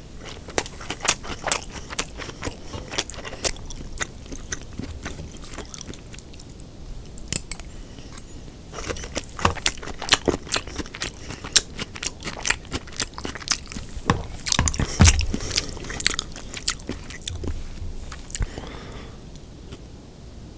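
A person eating sweet-and-sour pork and fried rice close to the microphone: crisp crunching bites and wet chewing in quick clusters, easing off for a few seconds in the middle and again near the end.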